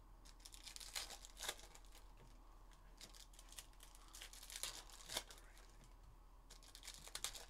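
Faint crinkling and tearing of foil Panini Contenders football card pack wrappers being opened by hand, in scattered short crackles.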